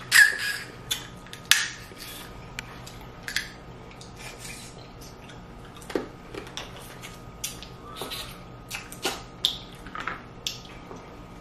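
Snow crab legs being cracked and eaten close to the microphone: scattered sharp shell cracks and clicks at irregular intervals, the loudest just after the start and about a second and a half in.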